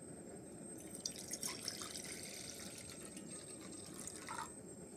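Water poured from a plastic jug into an empty nonstick pot, splashing on the pot's bottom. It starts about a second in and stops shortly before the end.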